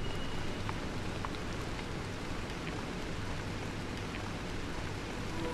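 Steady, even hiss of outdoor ambience, with a few faint scattered ticks. Sustained music tones come in near the end.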